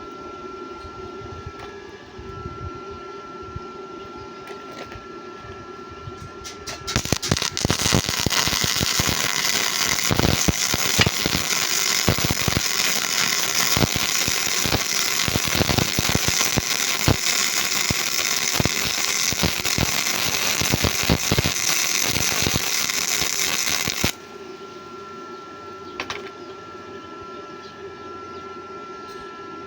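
Gasless (flux-core) MIG welder running a bead: the arc strikes about a quarter of the way in and crackles and spatters loudly and irregularly for about seventeen seconds, then cuts off suddenly. A steady hum with a thin whistle is heard before and after the arc.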